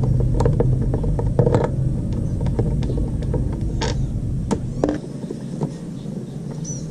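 Scattered clicks and small knocks of a Phillips screwdriver working out the screws of a scooter's plastic air filter box cover, over a low steady rumble that drops away about five seconds in.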